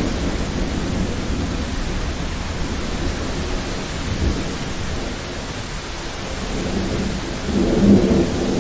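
Steady rain with low rolling thunder underneath; the rumble swells louder near the end.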